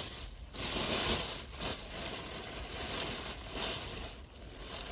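Rustling and crinkling handling noise that comes in swells of about a second each.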